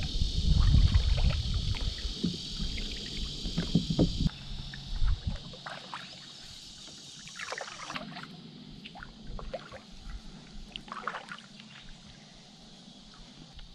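Canoe being paddled with a double-bladed paddle: the blades dip and pull through the water with small splashes and drips. Wind rumbles on the microphone for the first few seconds.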